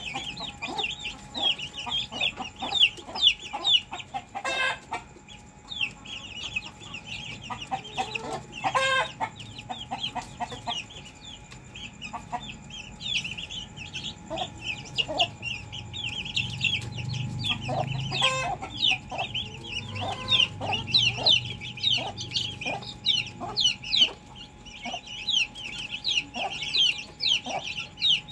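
Domestic chickens clucking, with a few louder calls about 5, 9 and 18 seconds in, over a constant busy high twittering.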